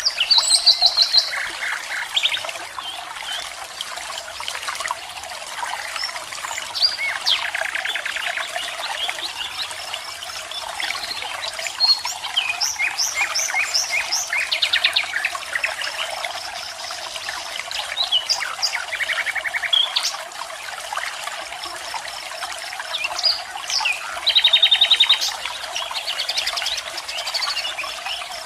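Several birds chirping and trilling, in quick runs of repeated notes, over the steady rush of a waterfall.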